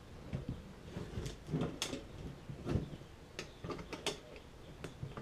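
Light clicks and small handling sounds at a first-aid cabinet, then its door is swung shut with a sharp click about four seconds in.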